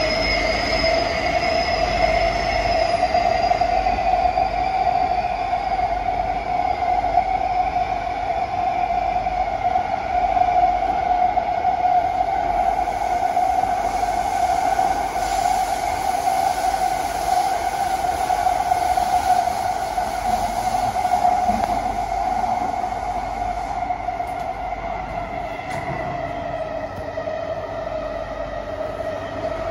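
Inside a moving SMRT C151B metro car (Kawasaki–CSR Sifang): continuous wheel-and-track running noise with a steady mid-pitched tone over a low rumble. A fainter high whine wavers and dips in pitch during the first few seconds, and the noise eases slightly near the end.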